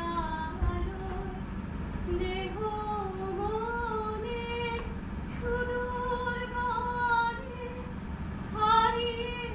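A woman singing a slow melody, holding long notes and gliding between them, with a faint steady low hum underneath.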